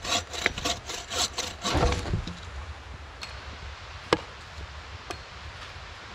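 Bow saw cutting through a small fallen tree trunk in quick strokes, about four a second, stopping about two seconds in. A few sharp knocks follow, the loudest about four seconds in.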